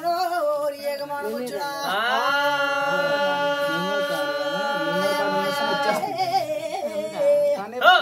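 Telugu folk singing by voice, with one long steady held note from about two seconds in until about six seconds, over a lower wavering voice.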